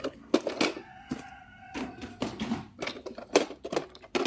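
A hard plastic toy bus being handled and turned over: a string of sharp clicks and knocks of plastic against hand and packaging.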